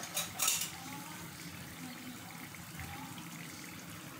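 Mini potato singaras deep-frying in soybean oil, a steady sizzling and bubbling, with a brief louder hiss about half a second in. The singaras are golden and fully fried, after about ten minutes over low heat.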